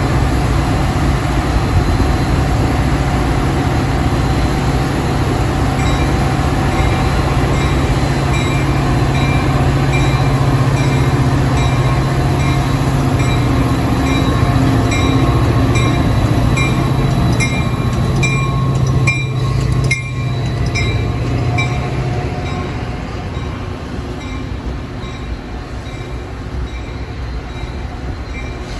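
Metra EMD F40-series diesel locomotive running under power as it and its train of bilevel passenger cars move past. Its bell rings steadily from about six seconds in, a couple of strokes a second. About twenty seconds in the engine sound drops off and the bell stops, leaving the lower rumble and rattle of the passing cars.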